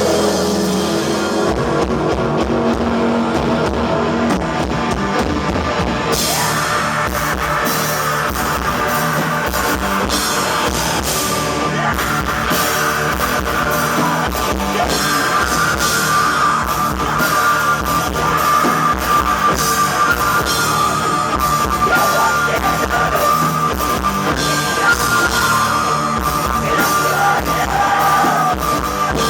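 Black metal band playing live: distorted guitar and fast drumming with vocals. The drums come in about a second and a half in, and the cymbals fill in a few seconds later.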